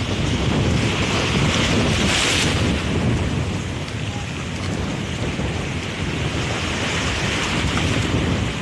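Sea waves washing onto the shore under strong wind, with wind buffeting the microphone in a heavy rumble. The hiss of the wash swells about two seconds in.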